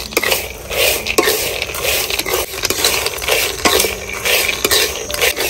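Raw peanuts and salt rattling and scraping in a dry pan as they are stirred for roasting, in a steady rhythm of about two strokes a second.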